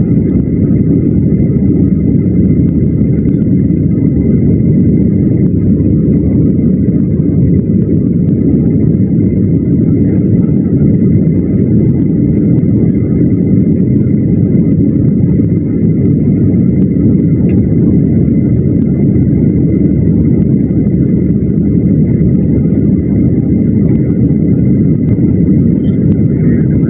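Steady, loud rumble inside the passenger cabin of a Boeing 737 jet airliner on descent, with engine and airflow noise heard through the fuselage. A faint steady high whine sits above the rumble.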